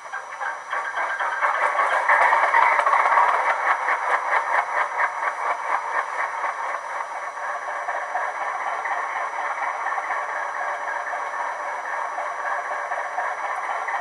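Howes sound chip in a model Class 205 'Thumper' diesel-electric multiple unit playing the unit's English Electric diesel engine sound through the model's small speaker. It runs with a fast, even beat, louder for the first few seconds, then settles to a steady idle.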